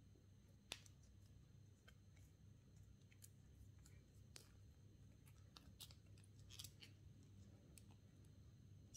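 Faint scattered clicks and soft rubbing of a Casio G-Shock's resin watch strap being pulled through its buckle and fastened on the wrist, the sharpest click just under a second in, over a steady low hum.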